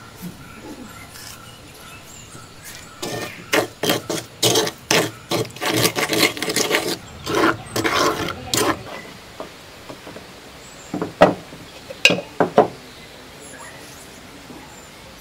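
Wooden spoon stirring and scraping a thick chili-and-sugar paste in a clay bowl, in quick rasping strokes several a second for about six seconds. A few sharp knocks follow about eleven seconds in.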